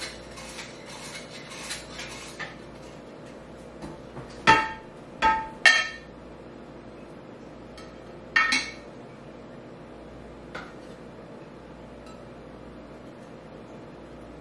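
Metal hand-crank flour sifter working over a mixing bowl with faint quick ticking. About four seconds in come three sharp, ringing clinks of kitchenware in quick succession, then one more a few seconds later.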